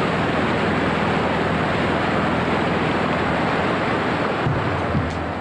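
Churning water of a boat's wake, a steady loud rush of foaming water.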